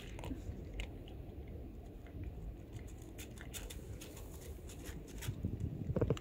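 Cat crunching dry kibble: irregular crisp clicks of chewing over a steady low rumble, with a louder low rumble near the end.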